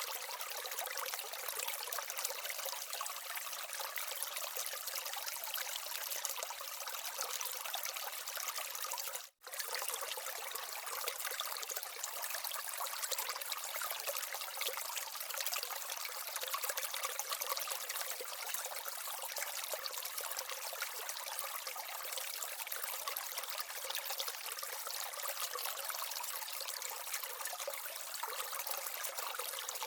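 Water trickling and splashing steadily down the small waterfall and stream of an aquaterrarium. The sound drops out for a split second about nine seconds in.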